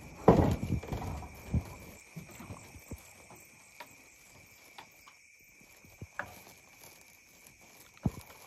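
Footsteps and knocks on wooden planks: a cluster of heavy knocks in the first two seconds, then a few scattered clicks and one sharp knock near the end. A steady high insect drone runs underneath.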